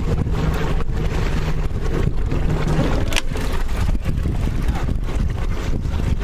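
Wind buffeting the microphone over the low, steady hum of a boat engine running at idle on open water; the hum drops away about three seconds in.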